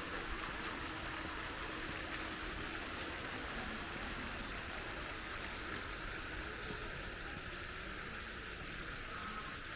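Fountain jets splashing into a pool: a steady hiss of falling water.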